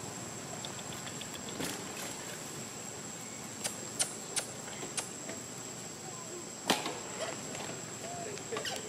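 A few sharp crackles and snaps of dry leaves and twigs as long-tailed macaques move over leaf-strewn ground, the loudest about two-thirds of the way through. A steady high whine runs underneath, with faint squeaky calls near the end.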